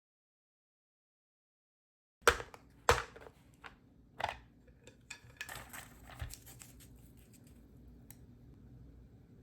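Mechanical keyboard keystrokes on BSUN Bunny light linear switches (PC top housing, PA bottom housing) in an aluminium-plate Enter67 board. About two seconds of silence, then two loud key strikes, then a run of lighter, irregular keystrokes that thins out, with one last stroke near the end.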